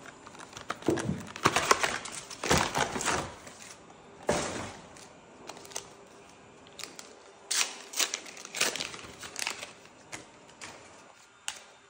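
A cardboard trading-card booster display box being opened and its foil booster packs tipped out and shuffled. The result is irregular rustles, crinkles and light clacks, busiest in the first few seconds and thinning to scattered clicks.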